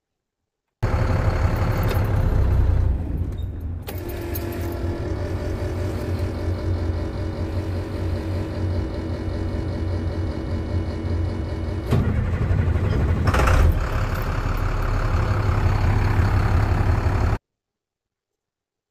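Diesel engine of an International 4300 truck running, cutting in and out suddenly. A steady whine joins about four seconds in, and there is a knock and a louder surge about thirteen seconds in.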